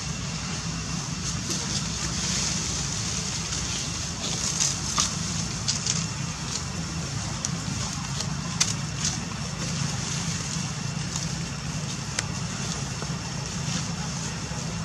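Steady outdoor background noise: a low rumble with a high hiss, broken by scattered light clicks and crackles.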